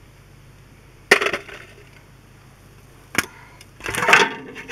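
Metal clanks and clatter as the oil pan is worked free and lowered from under a 1200 David Brown tractor's engine. There is a sharp clank with a brief ring about a second in, a single tick about three seconds in, and a longer clatter near the end.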